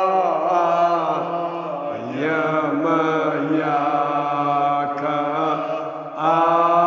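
Male voice chanting a Kashmiri marsiya, an elegy for the martyrs of Karbala, in long held, drawn-out notes. The pitch slides upward about two seconds in.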